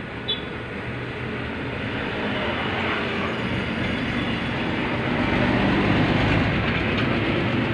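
Rumble of a passing motor vehicle with a steady low engine hum, swelling gradually louder and peaking about three quarters of the way through.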